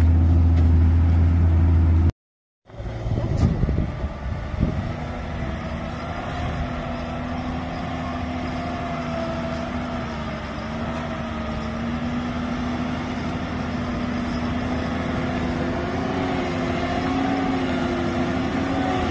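Heavy loaded truck's diesel engine running under load as it drives over rough dirt ground, a deep drone at first. About two seconds in the sound cuts out briefly. It resumes as a steady engine note whose pitch wavers and slowly climbs, with a few knocks and clunks just after the cut.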